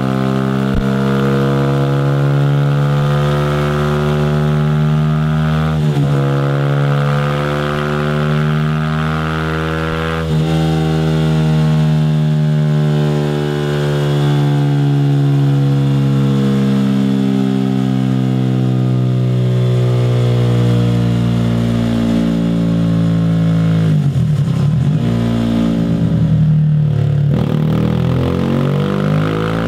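Honda CB125R's single-cylinder four-stroke engine running on a chassis dyno through an aftermarket Scorpion Serket exhaust. The revs hold fairly steady, dip sharply and recover a few times, and climb quickly near the end.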